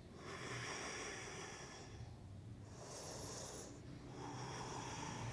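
A person breathing slowly and audibly through a held yoga pose, soft breaths swelling in and out every second or two.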